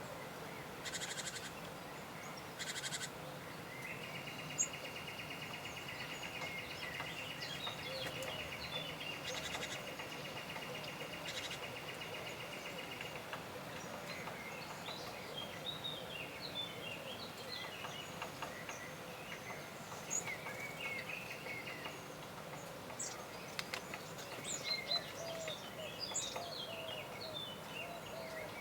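Forest birdsong: several small songbirds chirping and calling over one another. A long, even, rapid trill starts about four seconds in and stops about nine seconds later, and two short buzzy bursts come in the first few seconds.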